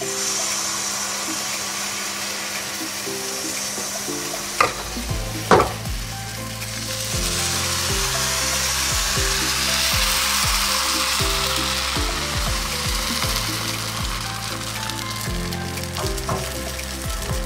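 Palappam rice batter sizzling in a hot non-stick appachatti as it is poured in and swirled around the pan, with two sharp knocks about five seconds in. Background music with a low beat comes in a few seconds in.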